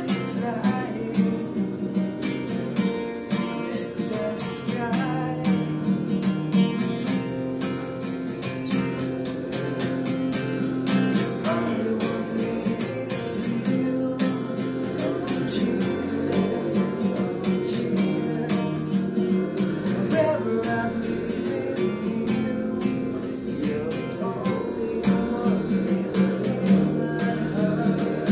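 Capoed Fender steel-string acoustic guitar strummed in a steady rhythm, with a man singing over it.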